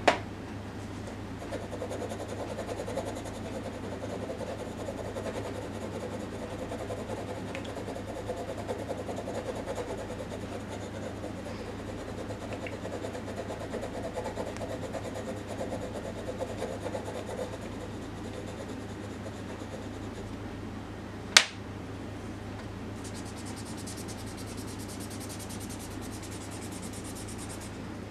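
Pencil shading on drawing paper: a steady scratchy rubbing of repeated strokes that stops about two-thirds through. A single sharp click follows, and then lighter, finer scratching near the end. A low steady hum runs underneath.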